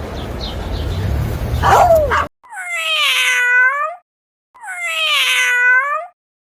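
Cat meowing twice, the same drawn-out call repeated, each dipping in pitch and rising again, with a silent gap between. It is preceded by a noisy stretch with a few short calls that cuts off abruptly.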